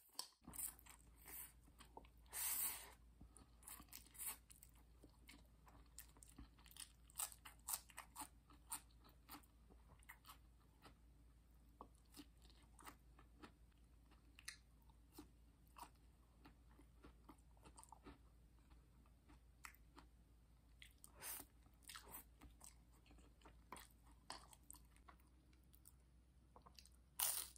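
Close-up mouth sounds of eating instant noodles: chewing with many small wet clicks throughout, and a few louder bursts, one about two and a half seconds in and another near the end.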